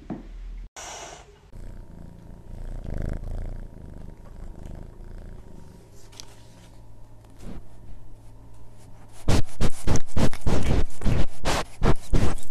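A cat purring into a tiny handheld microphone held right at its face: faint at first, then from about nine seconds in loud and pulsing.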